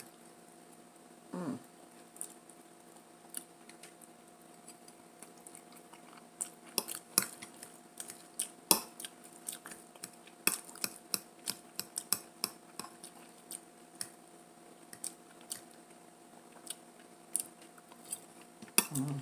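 Close-up eating sounds: a metal fork clinking and scraping in a plastic food container, with chewing and mouth smacks. They come as a run of sharp clicks, sparse at first and dense from about a third of the way in, over a faint steady hum.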